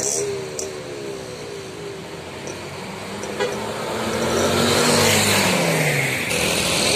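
A Hino coach bus drives past close by. Its engine note rises and then drops in pitch as it goes by, and tyre and road noise swell to their loudest about five seconds in.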